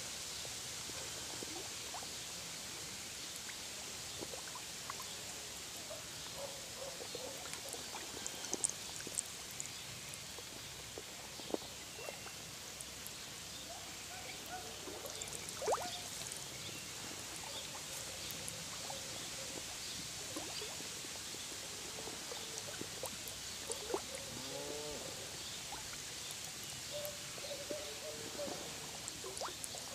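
Frogs calling now and then from a reed bed, short croaks scattered through and more frequent near the end, over a steady hiss. A few sharp clicks and knocks come in between.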